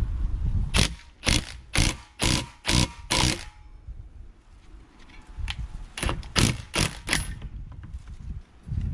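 Ryobi cordless impact wrench hammering in short bursts: about six in quick succession, then four more a few seconds later. It is driving the screw of a C-clamp ball-joint press to push a U-joint bearing cap out of a driveshaft yoke.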